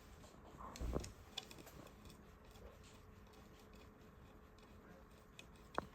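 Faint handling noise of small parts being fitted to a rail. A soft knock comes about a second in, with a few light clicks, the last one near the end.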